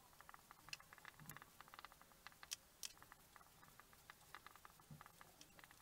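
Faint, rapid squeaks and taps of a marker pen writing on a whiteboard, sped up in fast-forward.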